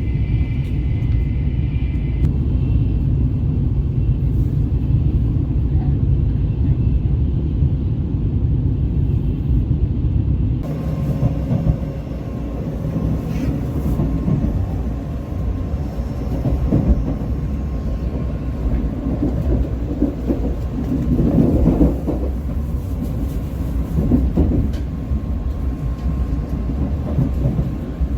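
Train running, heard from inside the carriage: a steady low rumble, with a hiss joining about ten seconds in.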